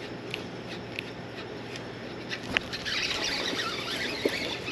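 Spinning reel's drag squealing as a hooked smallmouth bass takes line, starting about three seconds in and wavering in pitch, over the steady rush of river water. A few sharp ticks come before it.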